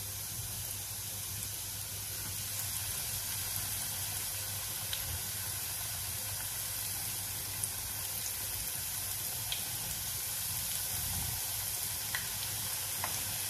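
Breadcrumb-coated potato and rice patties shallow-frying in oil: a steady sizzle with a few small pops, getting a little louder as more patties are laid into the pan.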